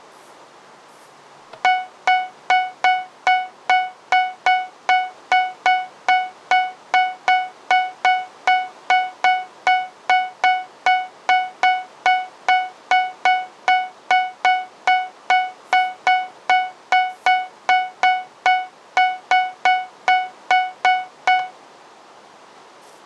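Fire alarm chime sounding: a clear ringing tone struck a little over twice a second, each strike fading before the next. It starts about a second and a half in and stops shortly before the end.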